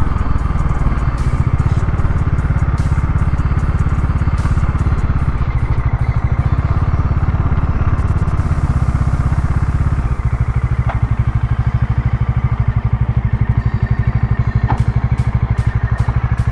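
Bajaj Dominar 400's single-cylinder engine running with a steady, low pulsing exhaust note; about ten seconds in it settles a little quieter and more even.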